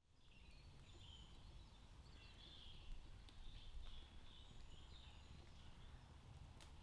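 Faint birdsong, a few short chirping phrases over a low, steady wind rumble.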